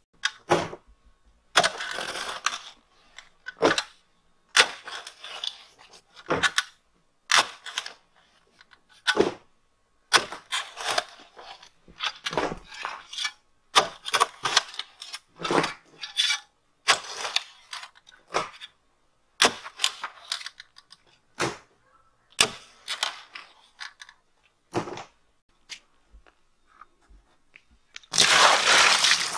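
Post hole digger chopping and scooping dry, hard soil at the edge of a septic tank hole to backfill around a plastic tank: short scrapes and knocks about once a second. Near the end, a steady rush of water poured into the hole.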